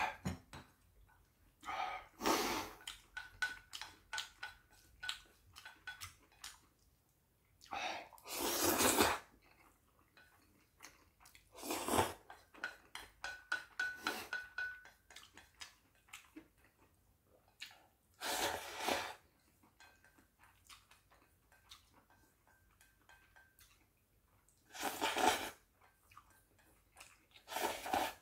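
Close-up eating of Chapagetti black-bean noodles: several loud slurps about a second long each, with chewing and small clicks of chopsticks against a stainless steel bowl between them.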